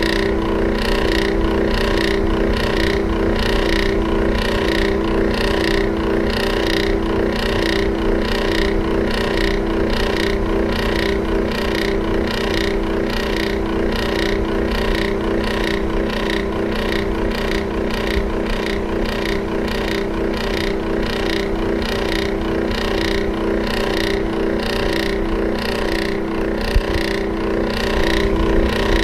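Electric fan running steadily: a motor hum under an airy hiss that pulses evenly about twice a second, with a single small click near the end.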